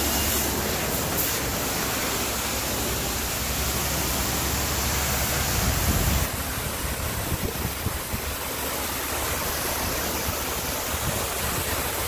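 High-pressure wand at a self-serve car wash spraying water onto a car's body, a steady loud hiss of spray. A heavy low rumble under it drops away about six seconds in.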